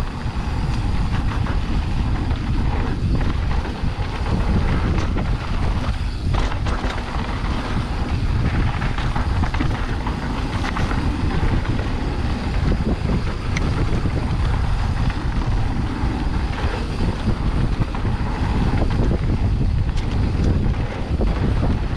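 Wind buffeting the microphone on a mountain bike moving at speed down a dry, dusty dirt trail, over the rolling noise of the tyres and small knocks and rattles from the bike.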